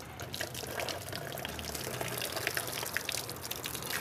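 Water running from a tap and splashing over a geyser's metal heating element as it is rinsed and rubbed clean of scale, with small scattered clicks and knocks of the element in the hands.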